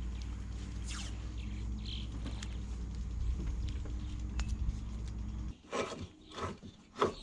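A steady low hum, which cuts off about five seconds in, followed by several short rubbing and scraping sounds of rope being handled and dragged in the keel trunk.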